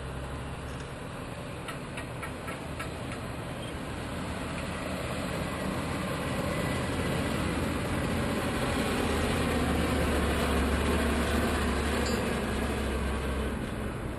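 Articulated dump truck's diesel engine running as it drives over the site, a steady low drone that grows louder until about ten seconds in.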